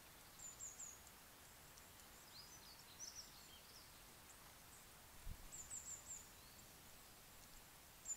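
Faint, high-pitched songbird chirps in short clusters, heard about four times over a steady hiss, with one soft low thump about five seconds in.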